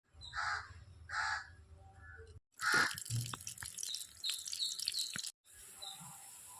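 A crow cawing twice, two harsh calls about a second apart. After a short break come birdsong with short chirps and a few sharp clicks.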